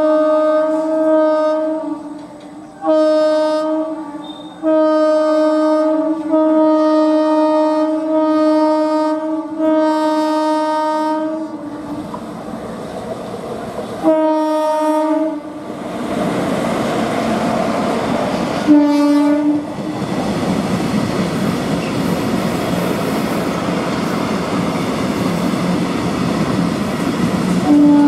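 Electric locomotive's air horn sounding a run of long blasts for about eleven seconds, then a shorter blast and a brief toot. After that comes the steady rumble and clatter of a long rake of loaded oil tank wagons rolling past.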